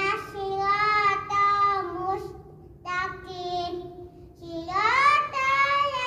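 A young boy chanting a salat prayer recitation aloud in a sing-song voice, in three long held phrases with short pauses between them.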